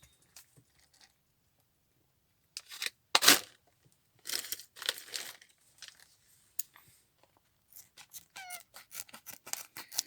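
Packaging being torn and crinkled in a few short bursts, followed by a run of quick light clicks near the end.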